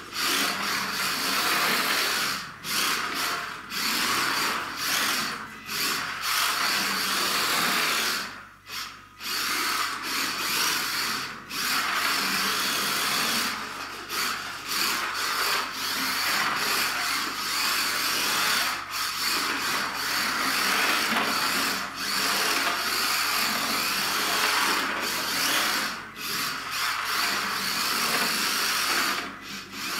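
Kyosho Mini-Z 1/28 RC car's small electric motor and gears whirring as it drives across a hardwood floor, dropping off briefly again and again as the throttle is eased and picked up.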